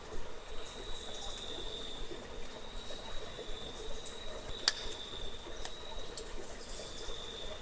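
Cave ambience: a steady high-pitched insect trill that swells and fades, with scattered water drips and clicks. One sharp drip a little past the middle is the loudest sound.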